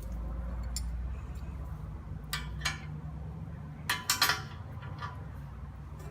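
Wrench and socket clinking against a bolt and lock nut as it is tightened on a backhoe bucket connector: sharp metal clicks, with a louder cluster about two-thirds of the way through, over a steady low hum.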